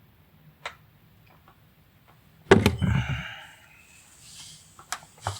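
A single sharp thump about two and a half seconds in, with a few lighter clicks before and after it.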